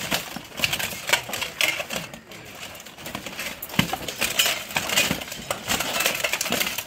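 Steel plate armor clanking and scraping as armored fighters grapple in a clinch, with irregular metallic knocks and clinks.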